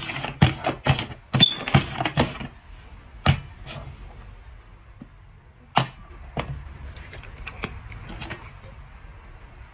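Small hard cups knocking and clacking on a tabletop as they are shuffled: a quick run of about eight knocks in the first two and a half seconds, then scattered single knocks.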